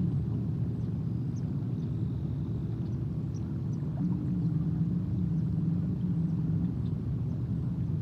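A steady low engine rumble, with a droning hum that swells in about four seconds in and drops away before the end. Faint, short, high bird chirps sound over it.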